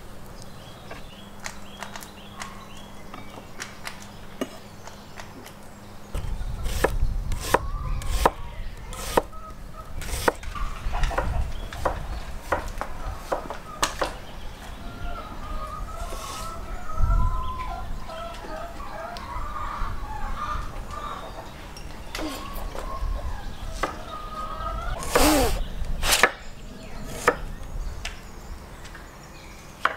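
Kitchen knife slicing tomatoes on a wooden cutting board: irregular sharp knocks as the blade strikes the board. Chirpy calls sound in the middle, and a loud rising call comes near the end.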